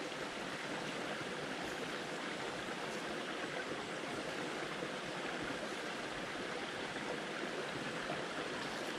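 Steady rushing of a stream's running water, with a few faint clicks.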